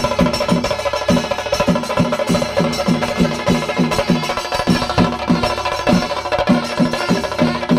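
Kerala chenda melam: chenda drums beaten with sticks in a fast, even rhythm of about four to five pitched strokes a second, with elathalam hand cymbals clashing and a held wind-instrument note over the top.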